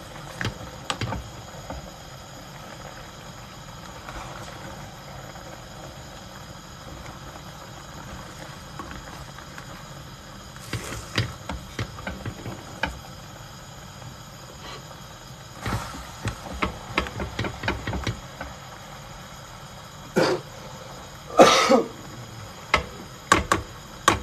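Scattered clicks and knocks of kitchen utensils and cookware being handled during cooking, over a steady background hiss, with one louder burst about a second long near the end.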